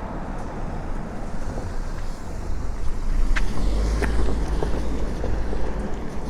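Outdoor street ambience: a steady low rumble that swells about three seconds in, with two short sharp clicks in the middle.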